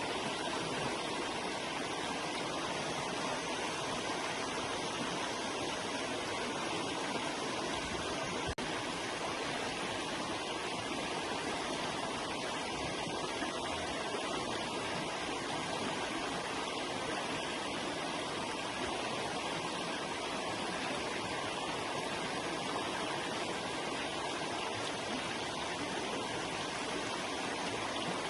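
River water flowing steadily, an unbroken even rushing sound, with a momentary dropout about eight seconds in.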